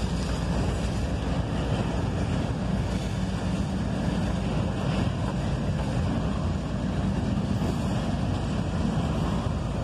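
Double-stack intermodal well cars of a freight train rolling past: a steady rumble and rush of steel wheels on rail.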